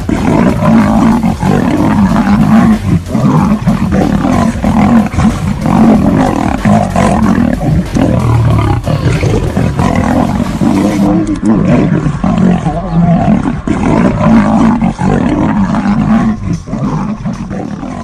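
A lion and a tiger fighting, roaring and growling at each other loudly and continuously, the calls overlapping one after another.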